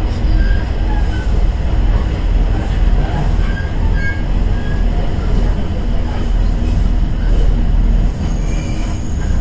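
Inside a KiHa 110 series diesel railcar under way: a steady low rumble from the engine and running gear, with a few faint, short high-pitched squeals from the wheels.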